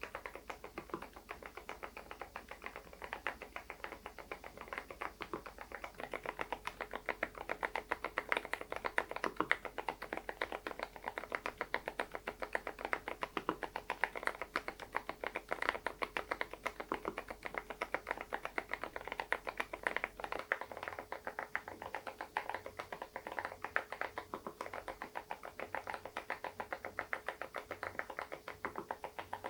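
Typing on an SPM PL108W full-size mechanical keyboard with stock, unlubricated low-noise Moksae switches: a steady, rapid run of keystrokes.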